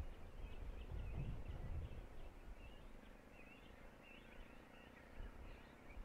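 Faint, distant birds chirping and calling, with a low gusting rumble of wind on the microphone that is strongest in the first couple of seconds and then eases.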